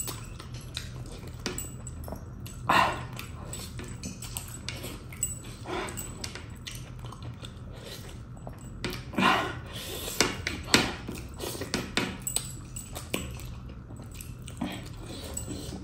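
Close-up eating sounds: wet mouth clicks and chewing as a mutton leg bone is gnawed and sucked, with several louder slurps, the loudest about 3, 9 and 11 seconds in.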